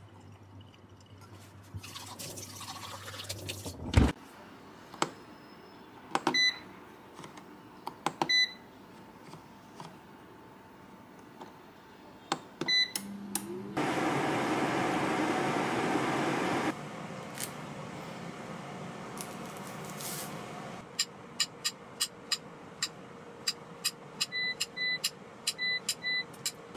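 A run of kitchen sounds: a thump, a few short electronic appliance beeps, and a loud rushing noise lasting about three seconds. Then a knife taps quickly on a plastic cutting board as a banana is sliced.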